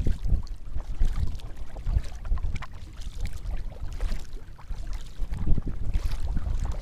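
Kayak paddle strokes in calm sea water, with splashes and drips from the double-bladed paddle, over low, uneven wind noise on the microphone.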